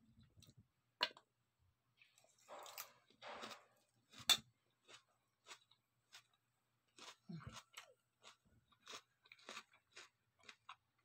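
A person chewing a mouthful of raw tomato, onion and red chili salad close to the microphone: a run of short, crisp crunches that comes faster, about two or three a second, in the last few seconds, with one sharp click about four seconds in.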